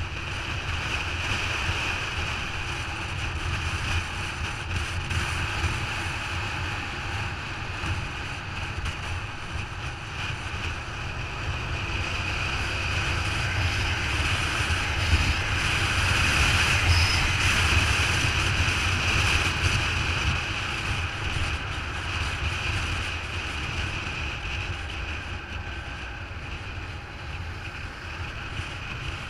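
Wind rushing over the microphone of a riding motorcycle, with the engine and tyre noise underneath as it runs at road speed. The rush swells gradually toward the middle, then eases off again.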